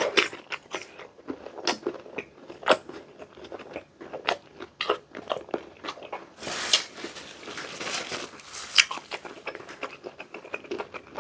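Close-miked crunching and chewing of raw green mango slices coated in a sweet-spicy shrimp-paste sauce: sharp crisp crunches at irregular intervals with wet chewing between them.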